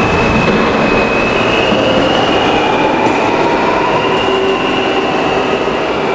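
New York City subway train running through the station, its steel wheels grinding and squealing on the rails: a loud steady rumble with thin, wavering high-pitched squeals over it.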